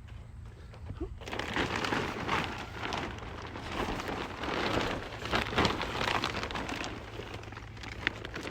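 Plastic wrapping and paper packaging crinkled and rustled by hand, a dense crackling that starts about a second in.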